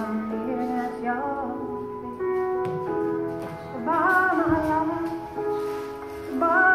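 Music with a singing voice: held instrumental notes under a melody line that swells about four seconds in and again near the end.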